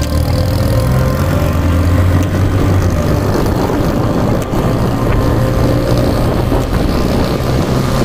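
Cars driving on a wet road: a steady engine drone with tyre and road noise.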